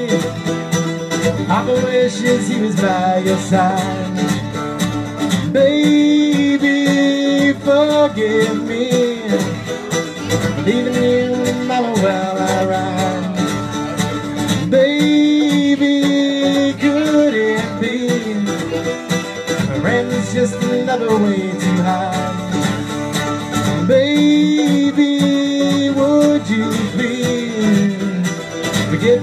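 Live country-style band playing: strummed acoustic guitar with a second guitar, and a melodic lead line in phrases that slide and bend in pitch.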